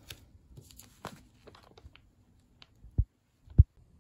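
Items being handled on a wooden floor: a crinkling, rustling sound of packaging or fabric over the first couple of seconds, then two short low thuds about half a second apart as things are set down.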